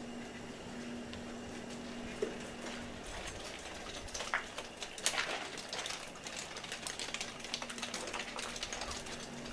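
Footsteps crunching over plaster debris: a run of small clicks and crackles from about four seconds in, one sharper click a second later, over a steady low hum.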